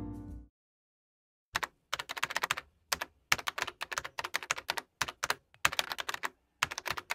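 Computer keyboard typing sound effect: runs of quick key clicks, starting about a second and a half in and broken by short pauses. A few piano notes of music end it just before, in the first half second.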